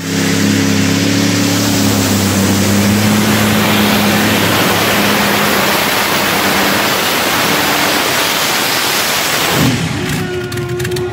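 Modified pulling tractor's engines running flat out: a loud, steady roar that drops away suddenly near the end.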